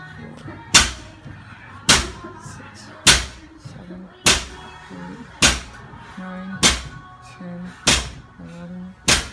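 Barbell with rubber bumper plates striking a concrete floor on each touch-and-go rep: eight sharp thuds at an even pace, about one every 1.2 seconds.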